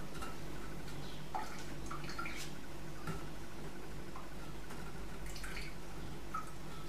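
Faint, irregular drips of rum falling from hand-squeezed soaked herbs through a mesh strainer into a glass jug, over a steady low hum.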